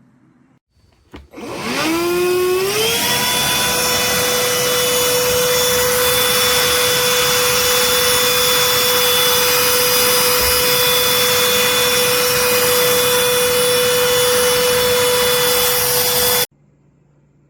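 Cordless handheld vacuum switched on with a click, its motor spinning up in a rising whine over about two seconds. It then runs with a steady whine and airy hiss until it stops abruptly about a second before the end.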